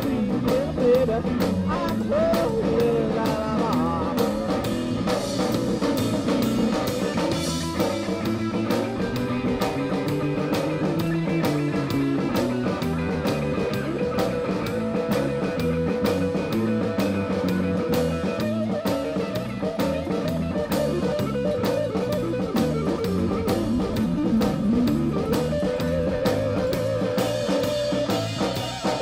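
Live blues-rock trio of electric guitar, bass guitar and drum kit playing an instrumental passage, the guitar bending its notes over a steady drum beat.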